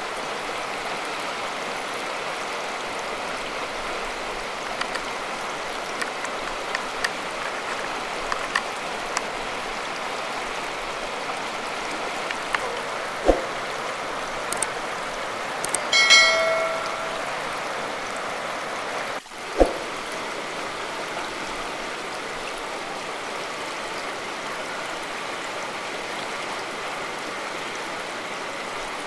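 Flooded river rushing over rocks and rapids: a steady, even rush of water. About halfway through come a few sharp clicks and a brief ringing tone.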